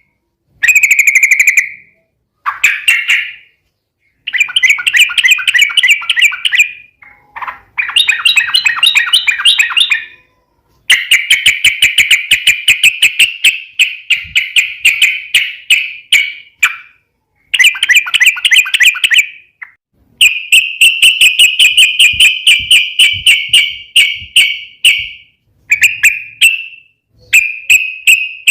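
Yellow-vented bulbul (trucukan) singing its fast chattering 'ropel' song: loud phrases of rapidly repeated notes, each one to six seconds long, separated by short pauses.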